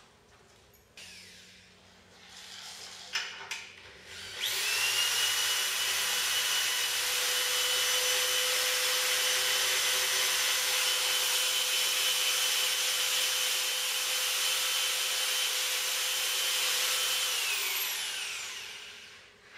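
Corded electric drill driving a motorcycle lift stand to lower the bike: a few light knocks, then the drill spins up about four seconds in and runs with a steady high whine for some thirteen seconds before winding down and stopping near the end.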